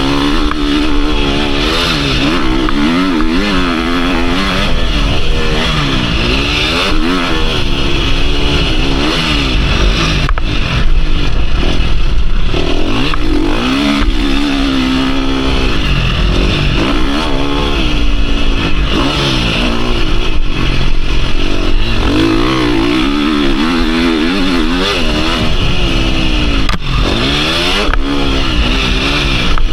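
KTM 350 SX-F four-stroke single-cylinder motocross engine being ridden hard, its pitch rising and falling again and again as the throttle is opened and closed and the gears change.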